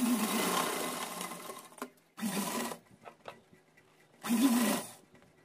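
Sewing machine stitching a gota ribbon onto fabric in three runs: one of about two seconds, then two short ones. Each run speeds up and slows down.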